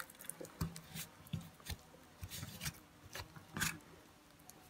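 Quiet, scattered clicks and light scrapes of small brush-cutter engine parts and hand tools being handled on a workbench, with a sharper click about three and a half seconds in.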